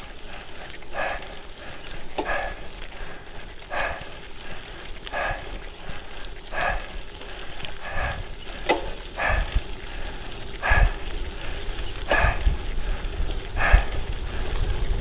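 A cyclist breathing hard during a hard, zone-5 effort on a steep gravel climb, one forceful breath about every second and a half. Low wind rumble on the microphone grows louder in the second half.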